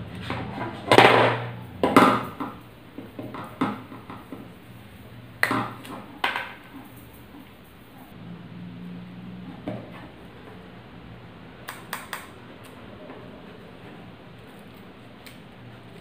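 Hand tools working a Cat6 UTP cable on a tabletop: a stripping tool clicks and scrapes as it cuts and pulls off the cable's outer sleeve, with the sharpest sounds in the first seven seconds. A few faint ticks follow later as the wires and a cutter are handled.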